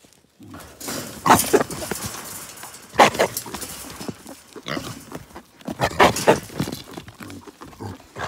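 Trapped wild hogs grunting in short, loud bursts, about half a dozen over several seconds.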